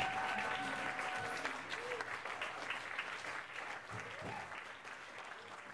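Audience applauding, the clapping fading away, with a few short calls from the crowd.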